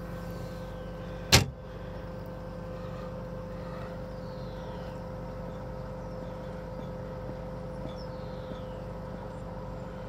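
Steady hum of running pond equipment, with several held tones in it. A single sharp click sounds about a second and a half in.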